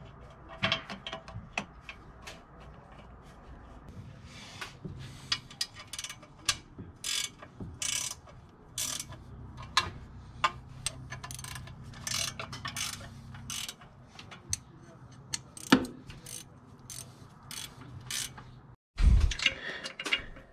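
Ratchet wrench clicking in short, irregular runs while header bolts are run in.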